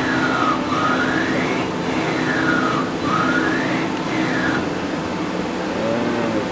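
CNC lathe axis servo drives whining as the slides are jogged back and forth, the whine sliding down and back up in pitch several times over a steady machine hum.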